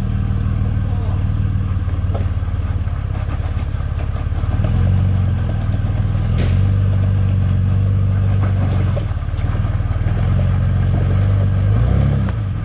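Jeep Wrangler TJ engine working under load on a rock and water climb, revving up and easing off several times, with brief dips at about four and a half, nine and twelve seconds in.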